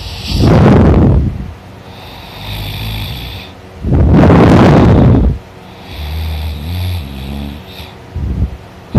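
A man snoring loudly while sleeping on his back: two long, harsh snores about four seconds apart, with quieter buzzing and hissing breaths between them and another snore starting at the end.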